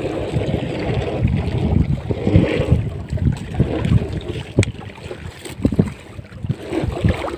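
Wind buffeting the microphone over open water while a heavy wet bag net (togok) is hauled up over a wooden boat's side, with a couple of sharp knocks about four and a half and five and a half seconds in.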